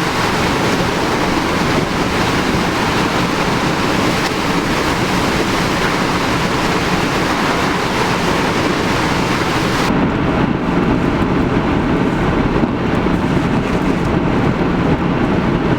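Hurricane wind blowing hard and steadily, a loud rushing noise battering the microphone. About ten seconds in the sharp upper hiss stops abruptly and the sound turns duller.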